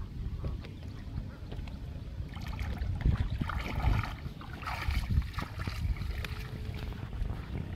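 Wading and splashing in shallow paddy water while a wet cast net is gathered, with a steady rumble of wind on the microphone. A busier stretch of splashing and rustling comes from about two and a half to five and a half seconds in.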